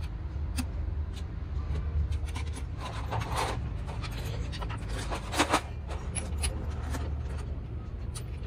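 A steady low rumble with scattered clicks and light knocks; the loudest knocks come a little past halfway through.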